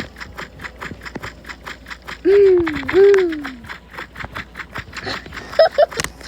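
A person's voice hooting twice, two drawn-out rising-and-falling 'hoo' calls under a second apart, amid scattered light knocks and taps.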